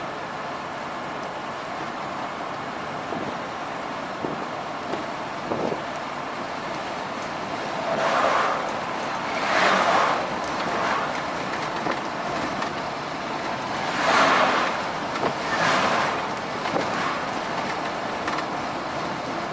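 Steady road noise of a truck driving on the highway, with four brief louder whooshing swells in the second half as other vehicles pass.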